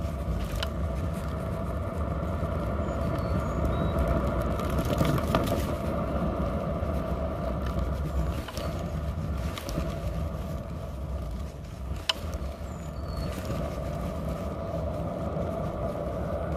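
Kick scooter's small hard wheels rolling over asphalt: a steady rolling rumble with a steady hum through it, broken by a few sharp clicks and rattles, the loudest about twelve seconds in.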